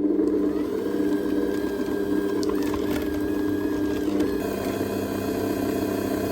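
Stand mixer motor running steadily as it beats vanilla ice cream, with a constant motor hum and whine.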